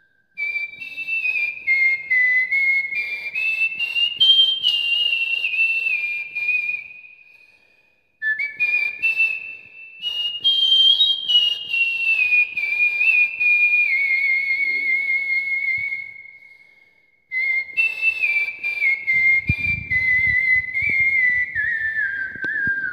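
A man whistling a song melody through pursed lips in imitation of a bamboo flute (bansuri): one clear tone stepping up and down in pitch, in three phrases with short pauses between them.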